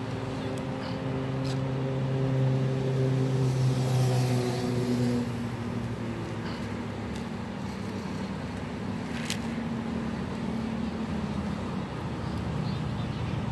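A motor engine running nearby with a steady hum, loudest a couple of seconds in and then fading away, over constant outdoor background noise. There is a single sharp click about nine seconds in.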